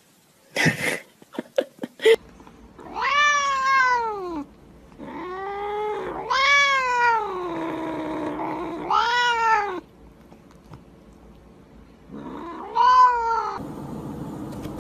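Domestic cat meowing repeatedly: about five drawn-out meows, each rising and then falling in pitch. A few sharp clicks come before them.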